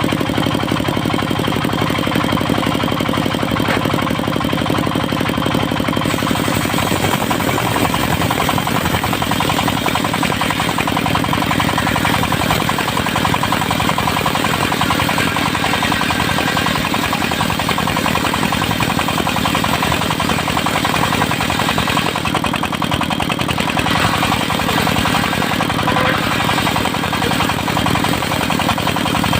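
Engine-driven portable circular-saw sawmill running steadily with a rapid, knocking engine beat. A higher hiss joins about seven seconds in, as the blade cuts mahogany.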